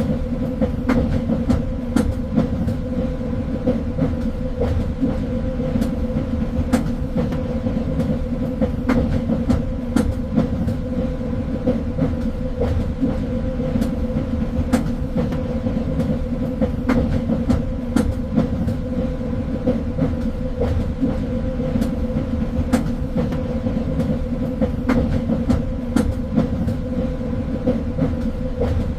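Train running on rails: a continuous low rumble with a steady hum, broken by frequent irregular clicks and clacks from the wheels.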